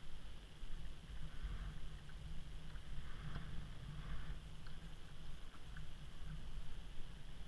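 Water lapping and splashing softly against a sea kayak's hull as paddles dip, a few soft splashes in the middle, over a low steady rumble.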